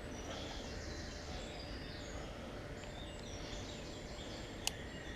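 Small birds chirping and singing faintly over a steady low background rumble, with two sharp clicks about half a second apart near the end.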